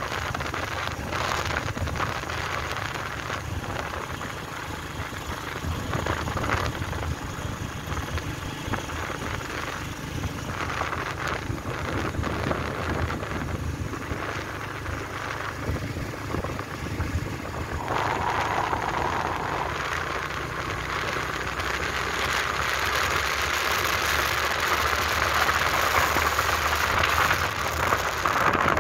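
Wind buffeting the microphone on a moving motorbike, with the engine and road noise running beneath. It grows louder over the last several seconds.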